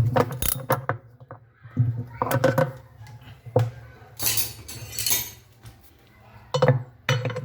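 Metal clinks and knocks from tools and loose metal parts as a washing machine's transmission assembly is worked apart, with a longer scraping noise about four seconds in.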